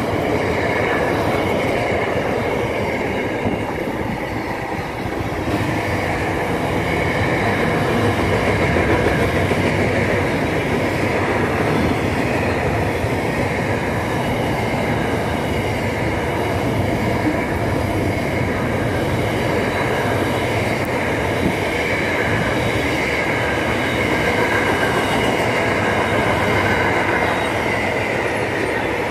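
Double-stack container freight train passing at close range: a steady rumble and rattle of wagon wheels on the rails, with a thin high squeal from the wheels running above it.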